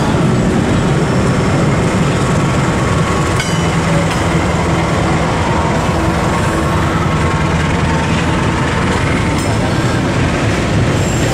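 Diesel locomotive hauling a container freight train past at close range, its engine running steadily, then the container flatcars rolling by over the rails with wheel noise and a single click about three and a half seconds in.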